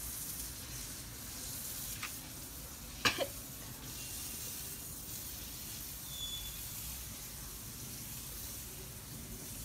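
Juicy orange slices being bitten, chewed and sucked close to the microphone: a wet, crackling hiss with two sharp mouth clicks about two and three seconds in, the second the loudest.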